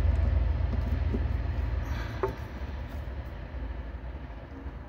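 A low rumble that slowly fades, with two faint clicks about one and two seconds in as wire connectors are pushed on.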